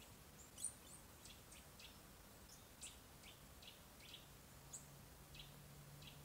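Faint, short, high bird chirps, about a dozen scattered irregularly, the loudest one early. A faint low hum comes in about two-thirds of the way through.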